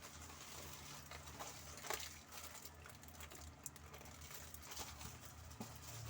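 Faint rustling and scattered light clicks of packaging being handled, the sharpest click about two seconds in, over a low steady hum.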